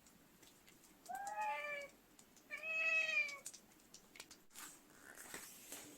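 Domestic cat meowing twice: two drawn-out meows, each a little under a second, rising then falling in pitch, the second louder. Faint clicks and rustling follow.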